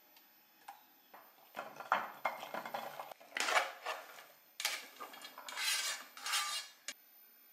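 Kitchen utensils clinking and scraping against cookware: a run of irregular clatters and scrapes from about a second in until near the end.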